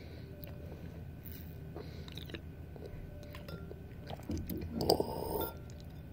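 Close-up mouth noises, like chewing: soft scattered clicks, with one louder noisy burst about five seconds in.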